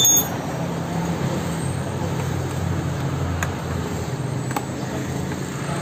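A steady low engine hum, like a motor vehicle running, goes on throughout. Over it, metal hand tools clink on the bolts being tightened: one sharp clink at the start and a couple of faint clicks later.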